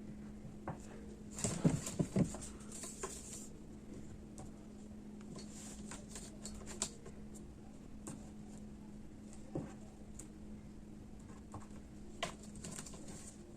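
Handling noise from measuring and marking cotton lining fabric: faint rustles of cloth and small taps and clicks, busiest about two seconds in, over a steady low hum.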